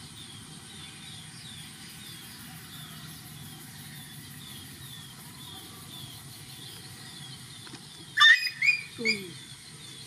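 A bird chirps steadily, about two short falling chirps a second. About eight seconds in, a young animal gives a few loud, high-pitched squeals, then a lower whine that falls in pitch.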